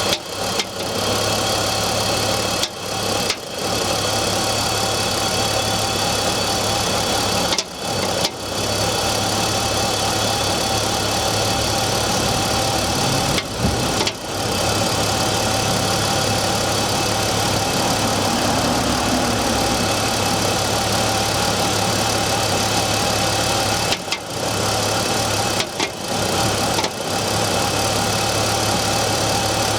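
BMW E46's M54 straight-six engine idling cold with a knocking noise. The sound drops out briefly a few times.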